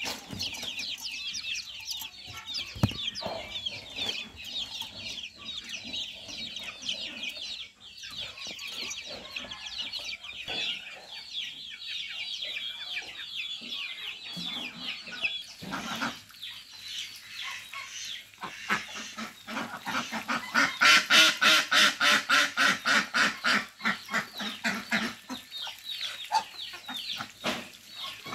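A flock of young chickens peeping, a dense stream of short chirps falling in pitch. About twenty seconds in, a louder, rapid, evenly pulsed clucking of chickens takes over for several seconds.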